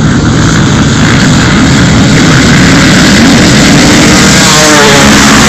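A pack of enduro motorcycles racing flat out across the field, many engines revving together and building in loudness over the first couple of seconds. About four and a half seconds in, one engine's rising rev stands out above the rest.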